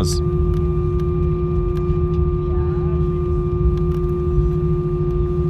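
Cabin noise inside an Airbus A320-232 taxiing on the ground: a steady low rumble with a constant droning hum at two pitches from the engines at idle and the air systems.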